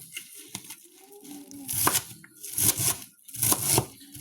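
Knife slicing through a head of cabbage, a crisp crunching stroke for each cut. Three strong cuts come in the second half, about one every 0.8 seconds.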